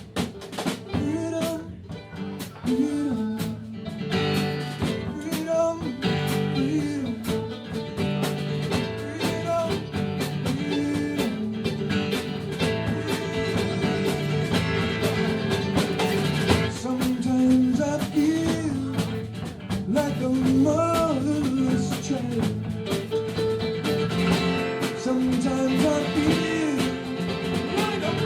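A live band playing a blues- and country-flavoured rock number, with guitar over bass and drums.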